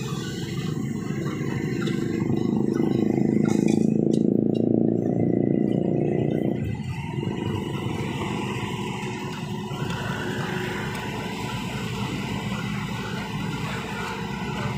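Diesel engines of a Hitachi excavator and a concrete mixer truck running during a concrete pour. The engine noise swells louder for a few seconds, then drops back about six and a half seconds in.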